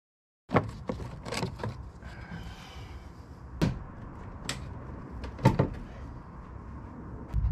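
Scattered sharp clicks and knocks of plastic trim pieces and clips being handled and pried on the front end of a C7 Corvette, starting about half a second in, with a faint squeak around two seconds in.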